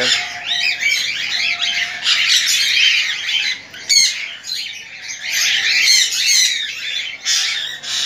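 Many small aviary birds chirping and chattering over one another, with a sharp call about four seconds in and busier chatter near the end.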